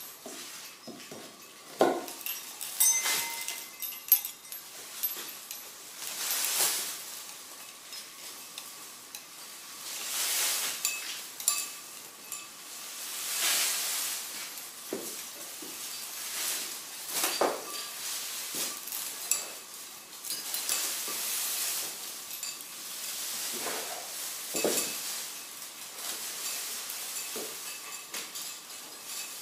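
Repeated rustling swells from a bundle of shiny black plastic streamer strips being handled and shaken, with scattered clinks and knocks.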